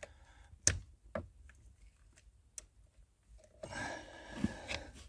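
Pliers and the plastic hood-release handle of a Skoda Superb II clicking as the release cable's ball end is gripped and pulled: a sharp click under a second in, a couple of fainter ticks, then about a second of rough rustling near the end.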